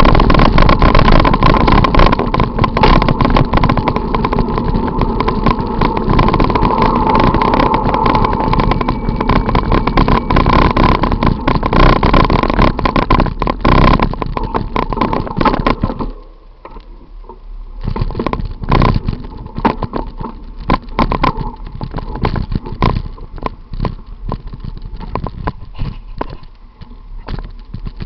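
Bicycle ride heard from a bike-mounted camera: rush and rattle of the mount over the road surface, with a steady whine, amid city car traffic. About two-thirds of the way in it drops much quieter, the knocks and rattles going on.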